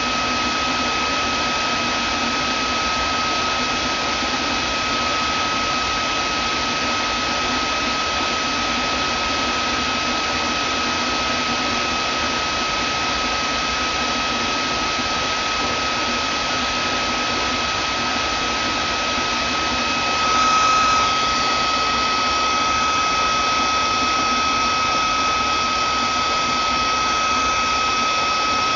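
Vacuum cleaner motor running steadily: a constant rush of air with a high, steady whine. About two-thirds of the way through it briefly surges louder, and the whine picks up extra higher tones.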